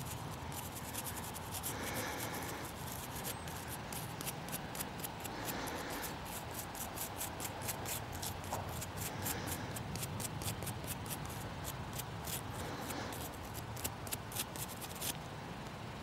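Toothbrush bristles scrubbing dry soil off a dug-up metal spectacle buckle: a steady run of quick, fine scratchy strokes.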